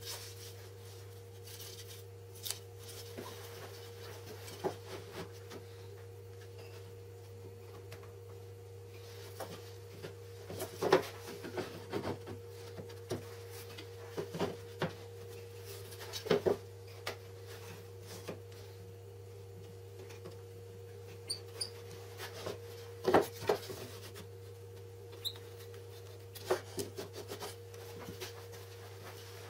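Wooden jigs sliding and knocking on the laminate top of a table saw as they are positioned by hand, scattered clunks and scrapes over a steady low hum.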